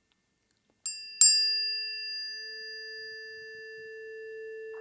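Two planetary tuning forks, for Venus and Pluto, struck one after the other about a second in. Their pure tones then ring on together, slowly fading.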